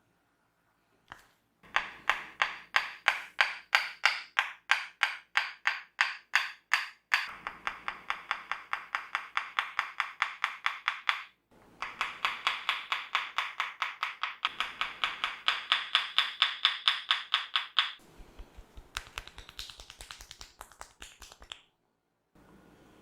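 A barber's hands making fast, rhythmic sharp snaps and taps on a head during a head massage, about four to six a second, in two long runs with a short break between. Near the end a slower, uneven run follows, with dull low thumps under it.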